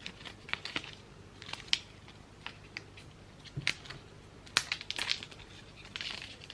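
AirPods Pro packaging being handled and opened: scattered small clicks and taps of cardboard and plastic, with a short rustle near the end.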